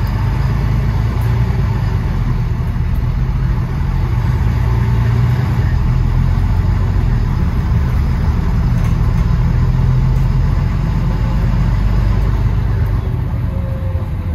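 London bus engine running with a steady low drone.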